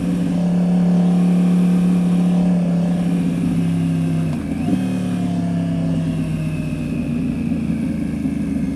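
Yamaha R1's inline-four engine through a Toce aftermarket exhaust, running at a steady pitch, with a brief dip and a quick blip about four and a half seconds in.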